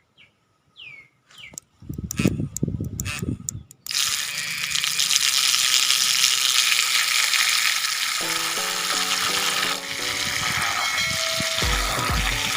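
A few short bird chirps, then several loud knocks or splashes, then a steady rush of churning, splashing water. Background music with stepped notes comes in about eight seconds in, with a beat joining near the end.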